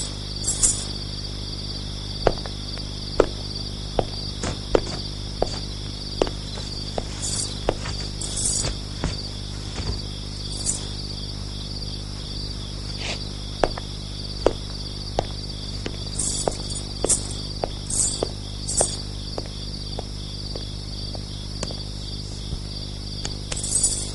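A steady insect chorus chirring, with repeated brighter high-pitched pulses, over a low steady hum, with scattered sharp clicks throughout.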